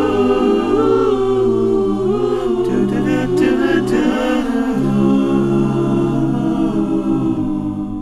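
Layered a cappella vocal harmony: several voices singing wordless chords together, with no instruments.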